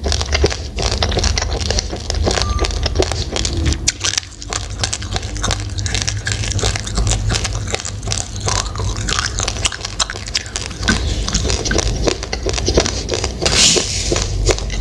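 Raw, uncooked rice grains being crunched and chewed close to the microphone: a dense, irregular run of small dry cracks over a low rumble.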